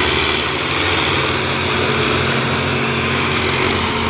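Diesel engines of several Belarus tractors running steadily under heavy load as they pull a laden trailer together, a constant low engine drone.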